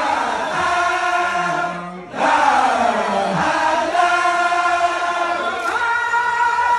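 A large crowd of Baye Fall disciples chanting a devotional chant together in unison, singing long held notes in phrases. There is a short breath pause about two seconds in before the next phrase starts.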